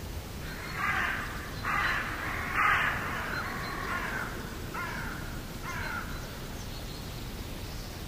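A bird calling five times: three loud calls in the first three seconds, then two shorter, fainter ones.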